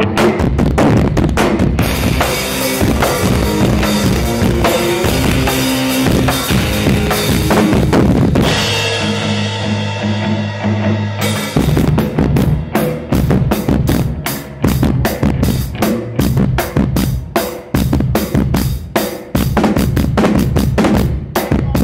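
Rock band rehearsing: a full drum kit with kick, snare and rimshots pounding over sustained amplified guitar chords. About nine seconds in the drumming drops out for a few seconds while the chords ring on, then comes back in as a steady beat.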